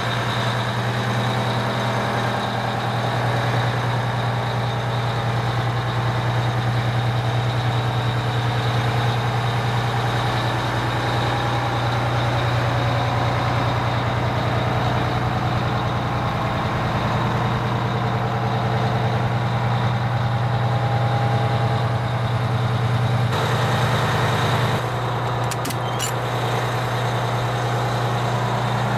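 Fire truck's Detroit Diesel engine idling steadily, with a few light clicks near the end.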